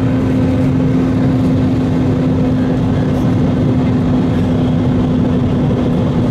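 Airliner cabin noise in flight: a constant rush of engine and airflow noise with a steady low hum running through it, unchanging throughout.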